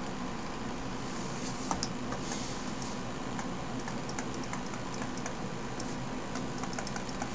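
Pen stylus tapping and clicking on a drawing tablet while writing by hand: a run of small, irregular clicks starting about a second in, over a steady low hum.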